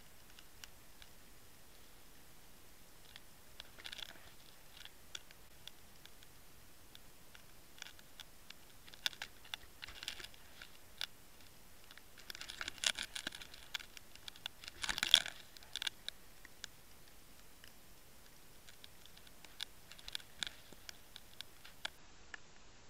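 Underwater clicks and crackles picked up through a submerged Waterwolf camera's housing, coming in scattered bursts: a few about four and ten seconds in, a busy stretch from about twelve to sixteen seconds with the loudest knock near fifteen seconds, and more around twenty seconds.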